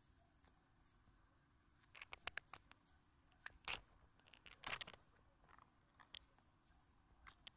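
Peacock butterfly flicking its wings open and shut, giving short dry crackling clicks: the wing-rubbing sound the species makes in defence. The clicks come in bursts about two, three and a half and nearly five seconds in, with a few fainter ones near the end.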